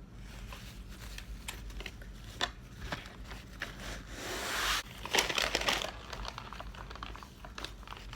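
Fast-food paper bag and wrappers crinkling and rustling as food is taken out and handled. There are scattered crackles throughout and a longer rustle about four seconds in.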